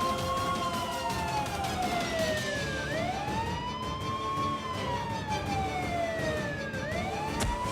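Fire alarm siren wailing: a single tone that rises quickly and falls slowly, the wail starting over about every four seconds.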